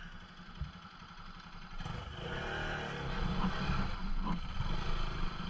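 Bajaj Pulsar NS200's single-cylinder engine running low, then revving up and pulling harder from about two seconds in on a muddy dirt trail.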